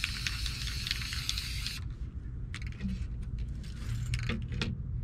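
Aerosol spray-paint can spraying in a steady hiss with spitting crackles, stopping about two seconds in. A few light taps and knocks follow as the stencil is moved and laid down on the board.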